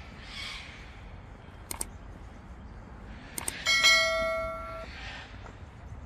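A single metallic, bell-like ring starts suddenly about three and a half seconds in. Several pitches sound together and hold for about a second, then cut off abruptly.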